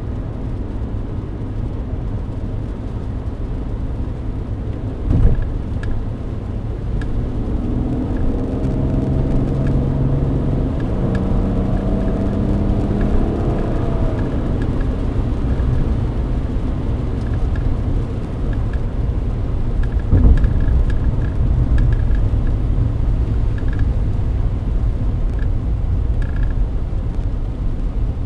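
Mercedes-Benz W124 heard from inside the cabin while driving: a steady low rumble of engine and tyres. An engine note swells and falls away in the middle, and there are two short thumps, about five seconds in and about twenty seconds in.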